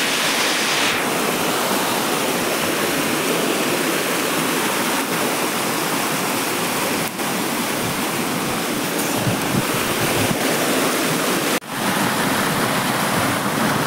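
Steady rushing of running water, with two short breaks.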